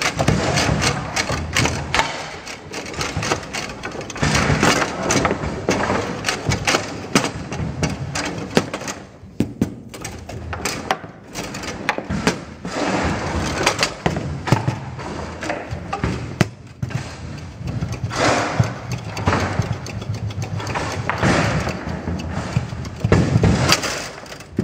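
Table football being played hard: the ball is struck by the plastic players and rattles off the table walls, and the rods knock against their bumpers, in a stream of irregular sharp clicks and knocks with brief lulls.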